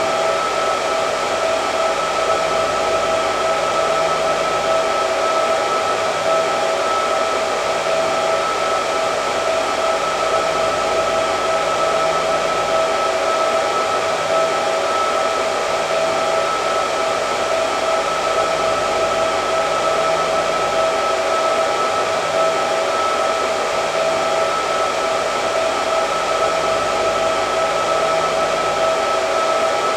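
Hair dryer running continuously: a steady rush of blown air with a high motor whine.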